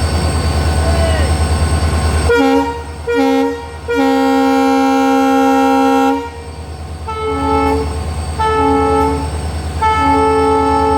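WDP4D diesel locomotive's horn sounding two short blasts and a long one, then two short and a long again: the Indian Railways horn code for an alarm chain pull, calling the guard. A deep steady rumble comes first, and the horns begin about two seconds in.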